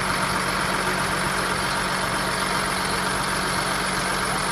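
John Deere 7810 tractor's six-cylinder diesel engine idling steadily.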